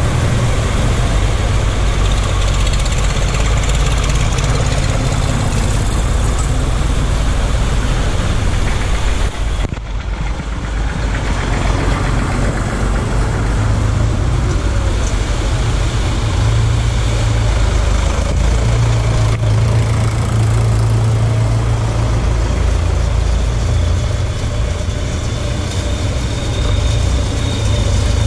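Vintage tractor engines running as the tractors drive one after another through a shallow ford, with water splashing up from their wheels. A steady low engine drone runs under the splashing. The sound drops sharply for a moment about ten seconds in, then carries on.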